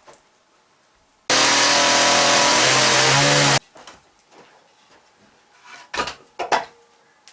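Power saw running for about two seconds, starting and stopping abruptly, followed a couple of seconds later by a few sharp knocks on wood.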